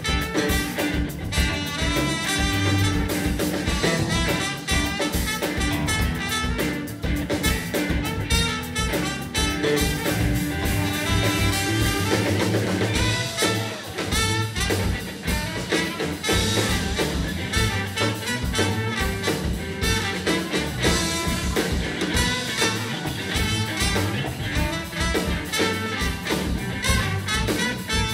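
Live band playing: a trumpet carries the lead over electric guitar, bass and a drum kit.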